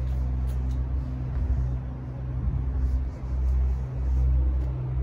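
Steady low drone of the Ford Transit's 2.0 EcoBlue diesel engine idling, heard from inside the empty load area of the van.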